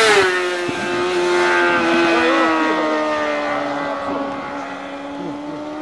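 Sport motorcycle passing close at speed: its high engine note drops in pitch as it goes by, then holds steady and fades as it pulls away.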